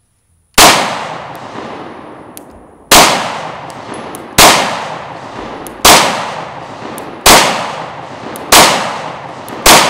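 FN 509 Tactical 9mm pistol fired seven times in slow, aimed fire, roughly one shot every second and a half. Each sharp report trails off in a long echo.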